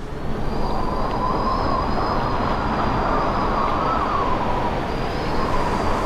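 Storm-force wind howling in a ketch's rigging over a steady rush of wind and sea, with a thin wavering whistle rising and falling in pitch.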